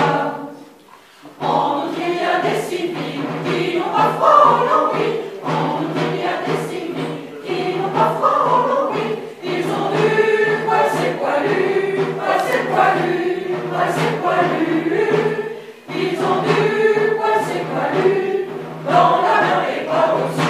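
Mixed choir of men's and women's voices singing a French song from the 1914–1918 war, in phrases separated by brief pauses.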